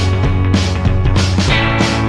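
Rock music with distorted electric guitar and a steady drum beat.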